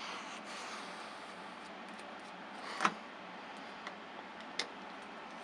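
Small clicks and taps from unscrewing the tiny Torx screws of a plastic GPS unit's back cover with a precision screwdriver and handling the case: a sharp click about three seconds in and a lighter one about a second and a half later, over faint hiss.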